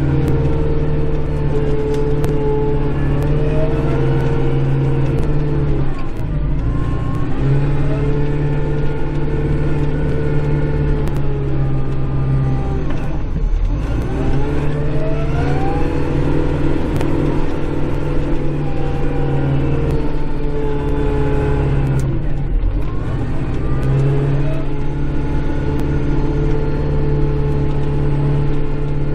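Kubota Grand L5740 tractor's diesel engine running under load, heard from inside the cab; the revs sag and climb back up three times as the tractor works back and forth plowing snow.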